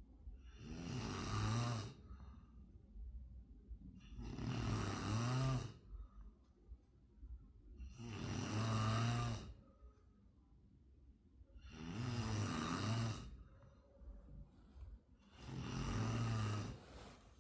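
Loud, rhythmic snoring: five long snores, one about every four seconds, with quiet breathing between them.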